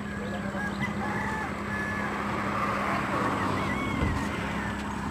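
A rooster crowing faintly over road traffic noise that swells and fades about midway, with a steady low hum throughout.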